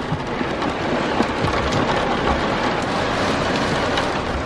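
Heavy rain falling on a minivan's roof and glass sunroof, heard from inside the cabin as a steady hiss with many small scattered ticks of drops.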